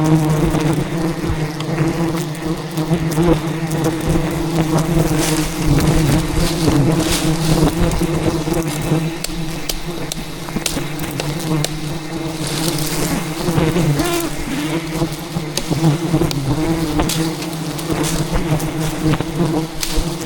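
A defensive swarm of giant honey bees (Apis dorsata) buzzing loudly and steadily close to the microphone, with scattered sharp ticks through it.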